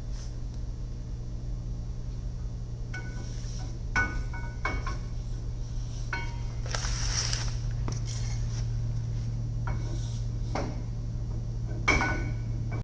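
Metal-on-metal clinks and clanks of axle and differential parts being handled, with a few sharp ringing knocks a few seconds in and near the end and a scrape in between, over a steady low hum.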